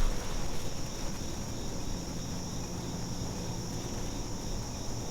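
Crickets chirring in a steady, high, even drone, with a brief low thump right at the start.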